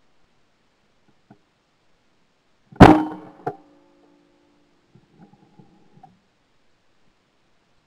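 A single shotgun shot at a down-the-line trap clay, heard very close from the gun's barrel-mounted camera, about three seconds in, followed half a second later by a quieter sharp crack and a ringing that fades over about a second. A few faint clicks follow near the end.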